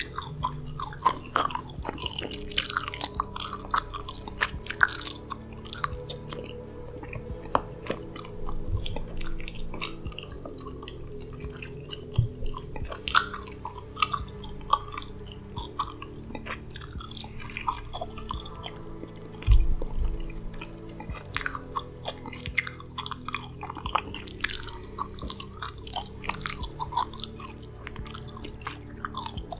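Close-miked gum chewing: wet mouth clicks and crackles, over soft background music of sustained low tones. A heavier low thump about two-thirds of the way through.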